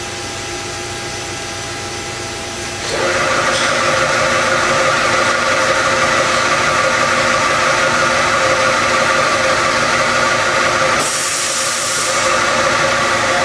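Wilton 2223VS variable speed drill press running, a steady mechanical whine made of many tones. It gets louder about three seconds in, and a brief hiss comes near the end.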